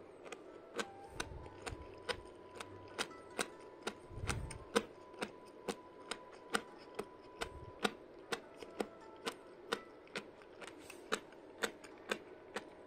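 Crunchy herring roe (kazunoko) being chewed close to the microphone: crisp, even crunches about two a second, with a few soft low thuds.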